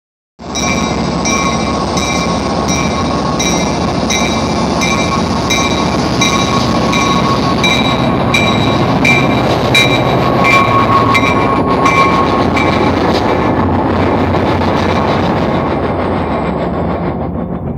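Diesel commuter-rail locomotive passing slowly with its warning bell ringing, about one and a half strokes a second, under the steady rumble of the engine. The bell stops about thirteen seconds in. The running noise carries on as the coaches roll by and fades near the end.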